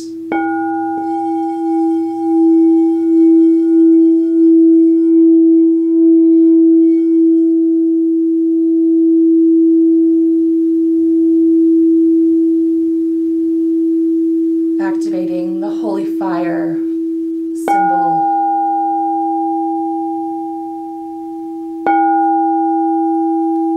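Frosted quartz crystal singing bowl ringing with one steady low hum throughout, its higher overtone fading away over the first several seconds. It is struck again with its wand twice, about eighteen and twenty-two seconds in, each strike bringing the higher ring back.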